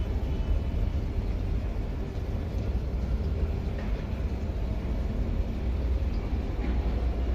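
Whirlpool top-load washing machine running, a steady low rumble.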